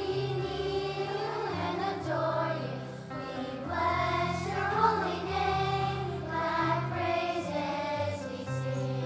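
Children's choir singing in unison, with an instrumental accompaniment holding low sustained notes that change about once a second.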